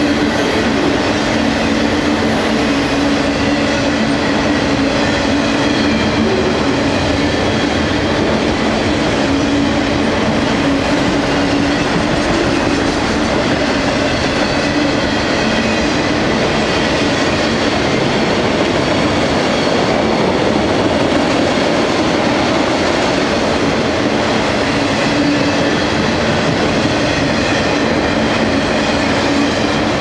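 Long freight train of autorack cars rolling past close by, its steel wheels running evenly on the rails.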